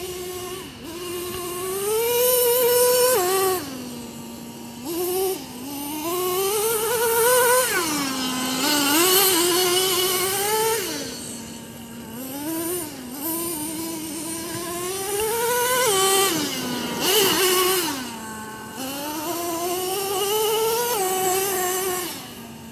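Traxxas T-Maxx nitro RC monster truck's small glow engine running high-pitched, revved up and down again and again as it is driven, dropping back to a lower idle about five times between throttle bursts.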